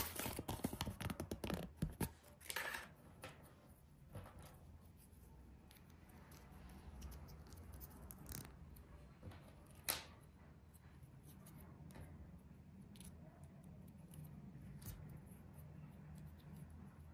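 A thin plastic toy bag crinkling as a small toy is taken out of it, then faint clicks and taps of small plastic toy parts being handled and snapped together, with one sharper click about ten seconds in.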